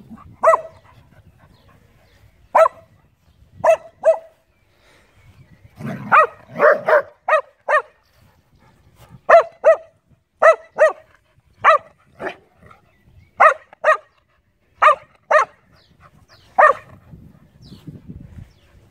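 A dog barking in play, in short sharp barks, often in pairs, with a quick run of about six barks around six seconds in.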